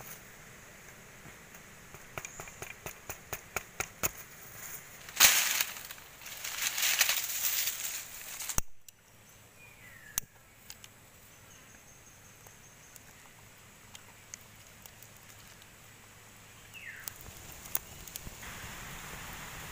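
Open wood fire crackling and popping as a coconut roasts over it, with a louder rushing flare for a few seconds in the middle. The sound cuts off abruptly about eight and a half seconds in, leaving quieter outdoor ambience with two short falling chirps.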